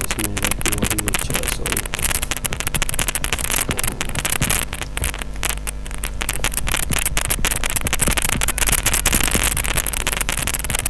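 Loud crackling static and hiss on the microphone, dense irregular crackles over a steady low hum: the recording's noise fault.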